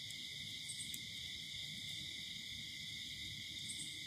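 Steady night chorus of crickets and other insects, a continuous high-pitched drone, with a couple of faint short chirps above it.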